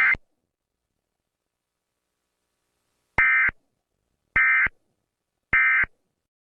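Emergency Alert System SAME digital data tones. After the tail of one burst at the very start and about three seconds of silence, come three short, identical bursts of warbling data tone a little over a second apart: the end-of-message code that closes an EAS alert.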